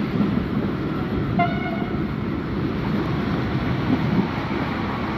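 Steady rolling rumble of a train of old Centoporte carriages running on the rails, with one short horn toot about a second and a half in.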